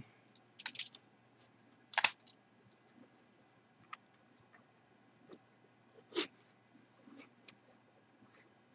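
Cardboard box being opened by hand: faint scattered scrapes and taps as the seal sticker is peeled and the lid worked loose, with a few sharper scrapes, the loudest about two seconds in.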